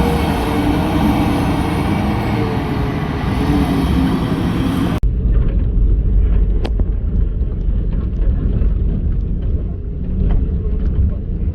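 Engine of heavy mining machinery running, its tones wavering in pitch. About five seconds in, the sound cuts abruptly to a duller, deep rumble with scattered clicks.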